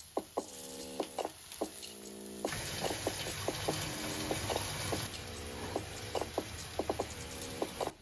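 Light background music of plucked, ringing notes. About two and a half seconds in, the steady sizzle of potato chunks frying in oil in a saucepan comes in under the music, and it stops abruptly near the end.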